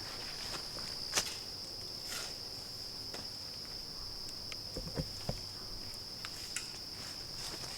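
Steady high-pitched chorus of evening insects, with scattered light clicks and taps; the sharpest click comes about a second in, and there are a few soft knocks about five seconds in.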